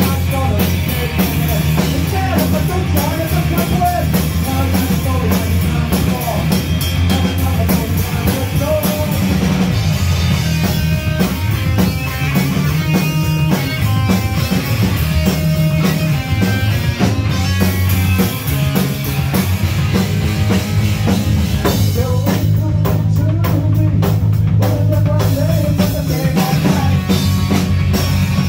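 Punk rock band playing live: drum kit, electric guitars and bass in a loud, continuous song, with singing in places.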